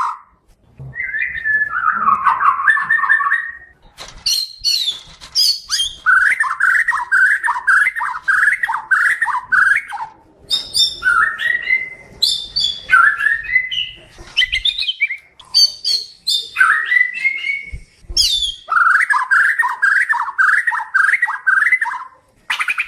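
Murai batu Kalimantan (Bornean white-rumped shama) singing loudly in varied phrases. Fast runs of rapid warbled notes alternate with rising whistles and sharp high notes, with short pauses between phrases.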